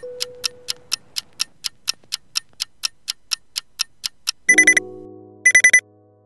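Countdown timer sound effect: a clock ticking about four times a second, then an alarm-clock beeping in short bursts of rapid beeps about a second apart as the timer reaches zero.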